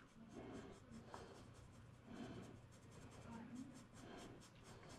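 Faint rubbing of a sponge-tipped pastel applicator across paper as pan pastel colour is worked in.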